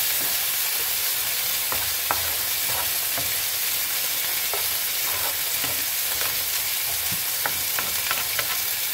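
Thick sour-cream and onion sauce sizzling steadily in a nonstick frying pan as a wooden spatula stirs it, with scattered light scrapes and taps of the spatula against the pan.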